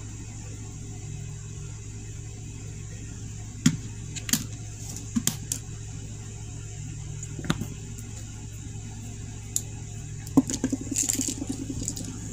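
Scattered small clicks and taps of makeup being handled, an eyeshadow palette and brush, with a quick run of taps near the end, over a steady low hum.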